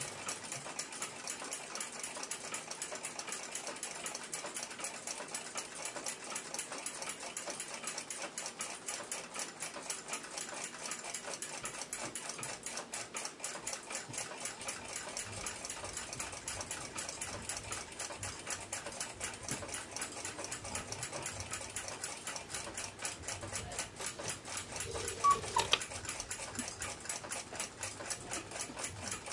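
Fast, even ticking of a mechanical clock. Near the end comes a brief louder rub with a short squeak.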